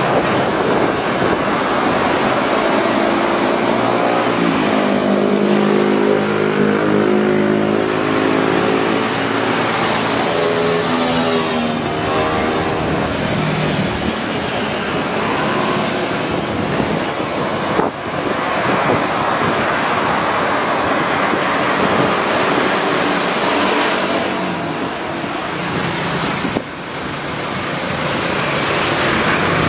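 A bus's diesel engine accelerating as it passes, its pitch climbing, over steady road traffic noise.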